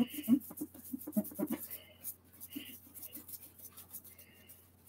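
Toothbrush scrubbing the wet vinyl scalp of a reborn doll head in quick scratchy strokes, working off air-dry hair paint that is hard to remove. The strokes are louder in the first second or so and then go softer.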